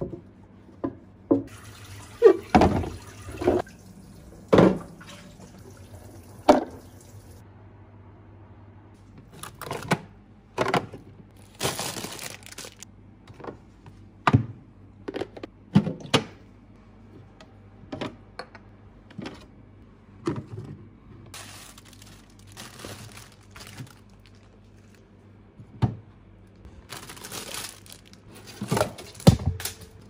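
Clear plastic containers and bins being handled, with repeated short knocks and clatters of plastic against plastic and shelves. A tap runs into the sink for several seconds near the start as the containers are rinsed, and later there is some rustling and clunking as items go back onto the refrigerator shelves.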